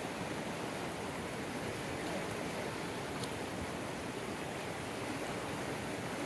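Steady rushing of a swollen river's flowing water.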